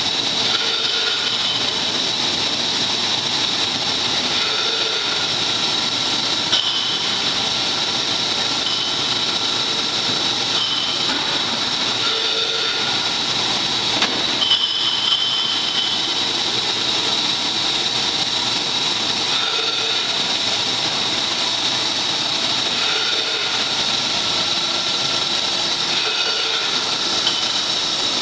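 Glass-jar bottling line running: slat conveyor and feed table carrying empty glass jars into a bottle cleaner. A steady machine noise and hiss with a constant high whine, and a few brief knocks, most about a quarter of the way in and around the middle.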